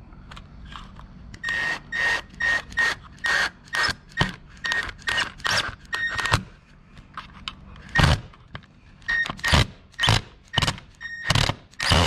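Cordless power drill driving a screw into a garage-door keypad's mounting base in short bursts of the trigger, each with a brief high whine, about three a second. Near the end come a few louder, heavier bursts.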